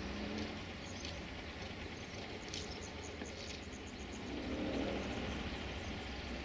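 Outdoor ambience beside a railway line: a steady low rumble with a faint, rapid, high-pitched chirping trill from a bird or insect about two and a half seconds in.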